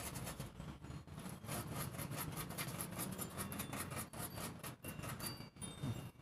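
Cotton swab scrubbing quickly back and forth over the solder joints of a TV's LED backlight strip, a fast scratchy rubbing.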